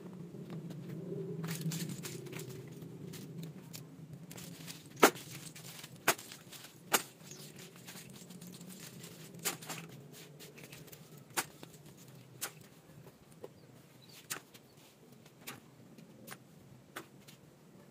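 Hard clinks of stone chips and broken tile fragments being picked up by hand and dropped, about a dozen at irregular intervals, the loudest about five seconds in. A low hum sits underneath, strongest in the first few seconds and fading.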